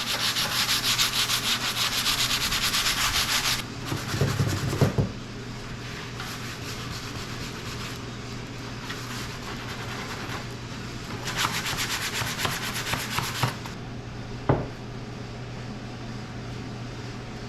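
180-grit sandpaper scuffing a resin-coated wooden boat transom to give oil-based paint something to grip. A fast run of sanding strokes for the first few seconds, a few knocks, a quieter stretch, then a second burst of sanding later on and a single sharp knock after it.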